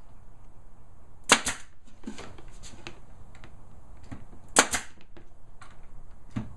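Pneumatic nail gun firing twice into wood, about three seconds apart. Each sharp shot is followed by a softer click.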